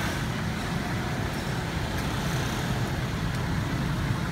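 Steady road traffic noise, a low rumble of passing vehicles with no distinct events.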